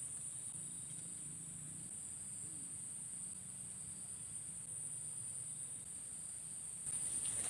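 Steady high-pitched drone of insects calling, getting a little louder near the end.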